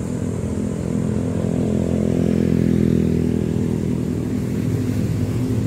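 A motor vehicle engine running steadily, growing a little louder about a second in and holding there.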